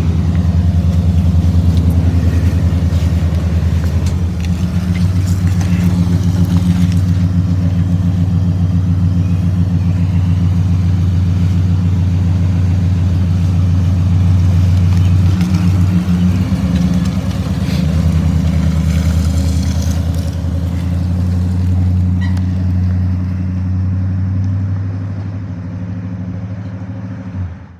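Cut-down BMW 535xi wagon's engine running steadily at a low, even note, fading out near the end.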